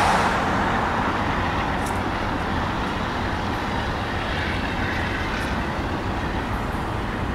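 Double-stack container train's well cars rolling past on the rails: a steady rumble of steel wheels on track.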